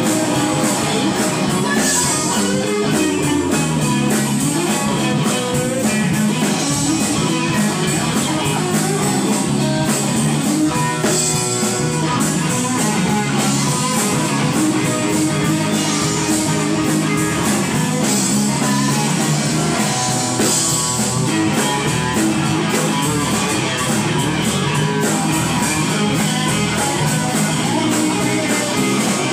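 Live band playing rock music in the room, with amplified electric guitar and a drum kit.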